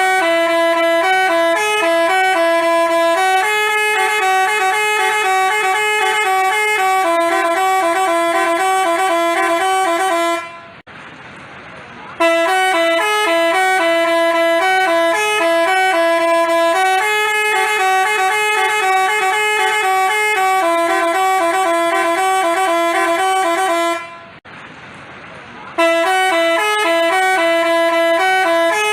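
Bus telolet horn of the 'basuri' type playing a tune of clear, stepped notes. The tune repeats in phrases of about twelve seconds, broken off twice for a second or two.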